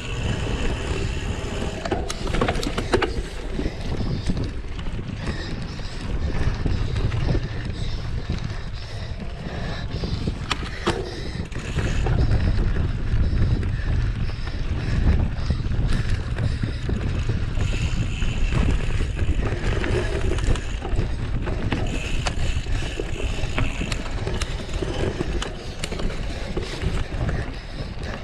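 Wind buffeting the microphone over the low rumble of a mountain bike being ridden off-road, with a few knocks from bumps in the trail.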